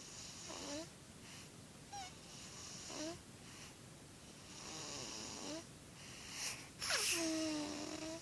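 A two-month-old baby snoring in her sleep: a noisy breath every second or two, several ending in a short squeak. Near the end comes a louder, longer squeaky snore.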